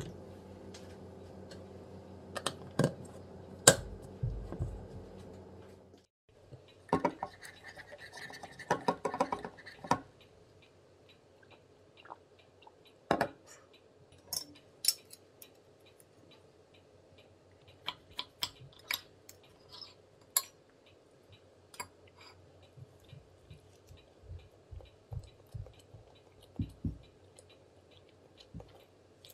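Cutlery on a plate: a fork and metal spatula clinking, tapping and scraping against a dish in scattered sharp clicks, with a dense run of scraping and clinking about 7 to 10 seconds in. Before that, a steady low hum under a few knocks.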